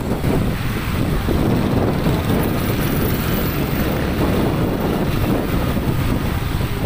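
Motorcycle riding along with its engine running, heard through steady wind rumble on the microphone.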